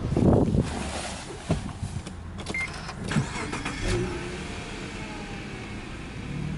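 Subaru Legacy 3.0R's 3.0-litre flat-six engine cranked and started partway through, then idling steadily at about 1,000 rpm. Rustling and a few knocks before the start.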